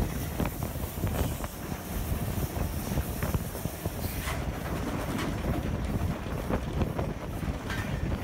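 Narrow-gauge steam train running, heard from alongside the locomotive: a steady low rumble with irregular knocks and clatter from the moving train, and wind buffeting the microphone.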